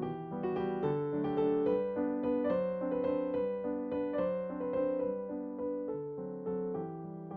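Background piano music: a slow, gentle melody of struck notes that ring and fade over soft lower notes.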